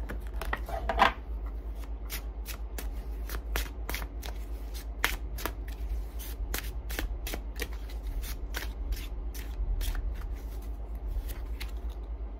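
A tarot deck being shuffled by hand, the cards snapping in quick, even strokes about three times a second, over a low steady hum.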